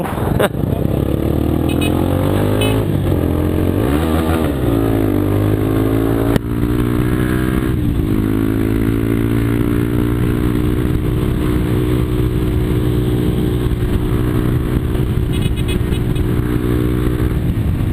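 Yamaha Fazer 250 single-cylinder four-stroke engine running through a Jeskap aftermarket exhaust: revved up and down a few times in the first five seconds and once more near eight seconds, then idling steadily.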